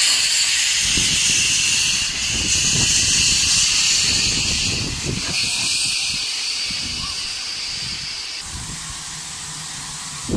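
Steam locomotive passing close by, steam hissing steadily from its cylinders over a low rumble of the running gear. The hiss stops suddenly about eight seconds in, leaving the lower rumble of the train rolling past.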